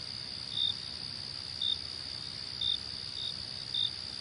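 Night insects: a steady high-pitched trill, with short, sharper chirps about once a second over it.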